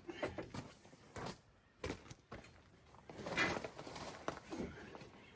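A few scattered knocks and clunks from handling suspension parts and tools under the truck, with a short scraping rustle about three seconds in.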